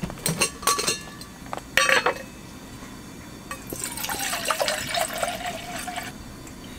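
A few clinks of camping cookware, then water poured into a vessel for about two and a half seconds, likely water for coffee.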